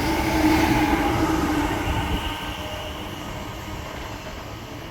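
A Heathrow Express pair of Class 387 electric multiple units passing through the station and moving away, the rail noise fading steadily.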